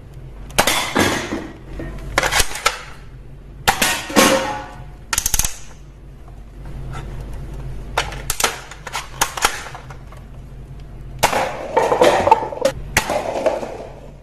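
Toy pump-action foam-dart shotgun blaster being pumped and fired, a string of sharp plastic clacks and snaps, with darts striking cups and knocking them down. A cluster of clacks comes near the end.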